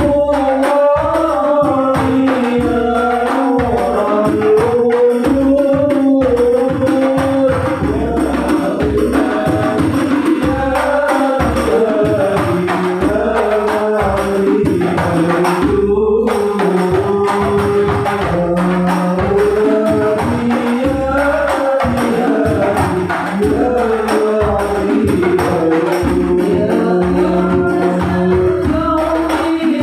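Sholawat devotional singing, a voice carrying a wavering melody over a steady beat of hand-struck frame drums (rebana).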